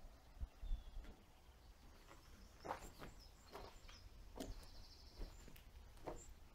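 Faint footsteps crunching over rubble and broken sheeting on a hut floor, about one step a second.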